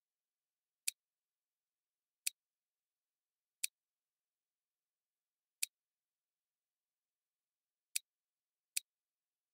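Computer mouse button clicking six times at uneven intervals, each a short, sharp click, with dead silence between them.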